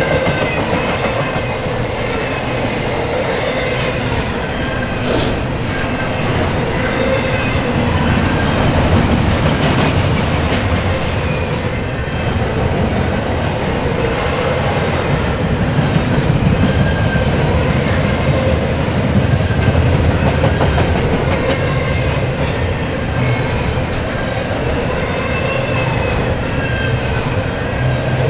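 Double-stack intermodal well cars rolling past at speed: a steady rumble of steel wheels on rail, with occasional clacks and faint wheel squeal coming and going.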